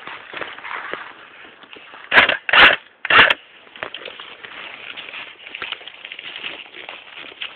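Footsteps crunching through dry leaves and brush, with a steady crackle of twigs and litter underfoot. A little after two seconds in come three loud, short rustling scrapes close to the microphone.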